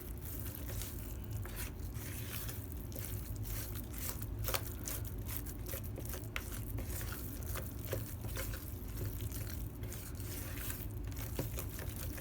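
A thick mixture of canned pumpkin and dry instant pudding mix being stirred in a bowl: an irregular run of soft scrapes, squishes and small clicks from the utensil against the bowl, over a steady low hum.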